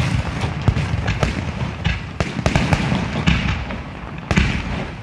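Aerial firework shells bursting in quick succession: a dense run of sharp bangs and cracks over a continuous low rumble, with a louder burst about four seconds in.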